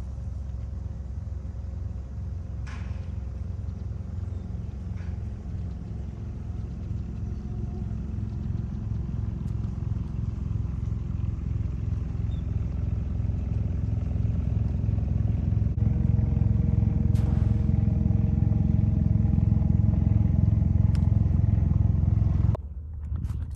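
Small outboard motor on an aluminium jon boat running at low speed, a steady pitched motor hum that grows louder as the boat comes closer. A few faint knocks sound over it, and the sound drops away abruptly near the end.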